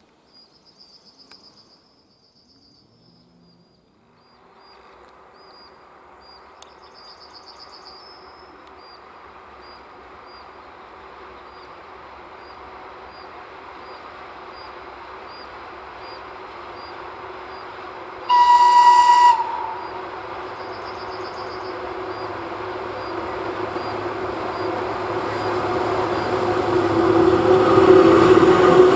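VL80K two-section electric locomotive with a freight train approaching and passing: a rumble that grows steadily louder, with one high horn blast of just over a second about two-thirds of the way through. As the locomotive draws level the sound is loudest, with a steady hum over the rumble.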